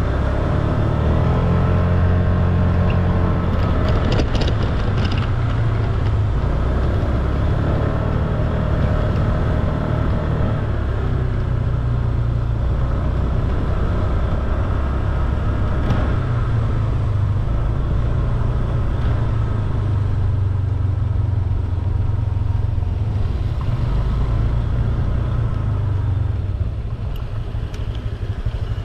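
Scooter engine running while riding, its pitch rising and falling with speed over a steady low rumble.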